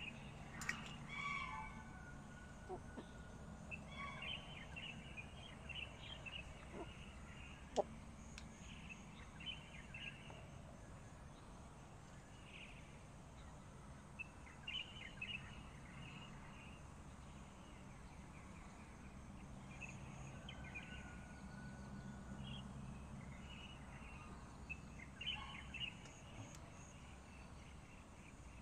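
Faint, scattered bird chirps over a low steady hum, with one sharp click about eight seconds in.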